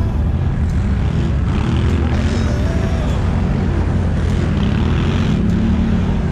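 ATV (quad bike) engines running with a steady low drone as the quads are ridden over snow.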